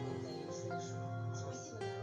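Background instrumental music with held notes that change every half second or so.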